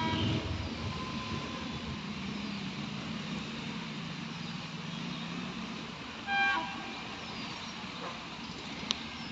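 ICF passenger coaches running past on the track, a steady rumble and rattle of wheels and bogies. A short horn toot sounds about six seconds in, and there is a single sharp click near the end.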